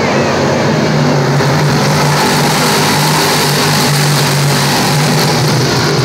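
A pack of sportsman dirt modified race cars running at full throttle, a loud dense mass of engines that swells in the middle as the cars pass closest, then eases.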